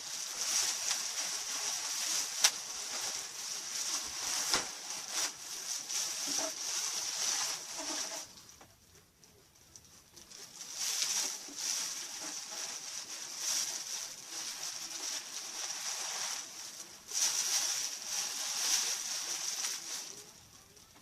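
Rustling and crinkling of packing material as items are unwrapped, in two long stretches with a short pause between them, with a few sharp clicks.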